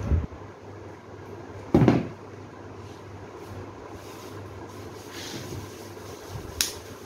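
Florist's scissors snipping through a rose stem with a single sharp click near the end, after a louder dull thump about two seconds in, over a steady low hum.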